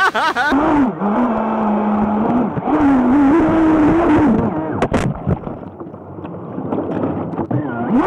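Electric jet drive of a Thrasher RC jet boat, heard from its onboard camera, whining and rising and falling in pitch with the throttle over rushing, splashing white water. A couple of sharp knocks come about five seconds in.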